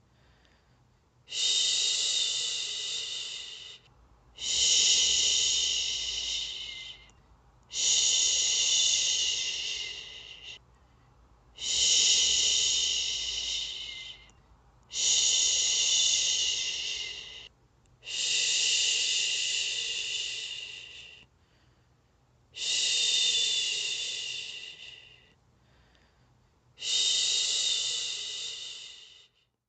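A woman shushing: a long "shhh" repeated eight times, about every three and a half seconds, each starting sharply and fading out, with a short silent gap before the next. It is the soothing shush used to settle a baby to sleep.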